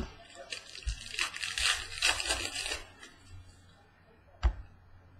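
A trading-card pack wrapper being torn open and crinkled, then cards handled, with a few light knocks on the tabletop and one sharper tap about four and a half seconds in.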